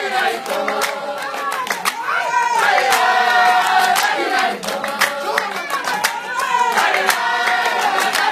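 A group singing together for a dance, with many sharp hand claps throughout.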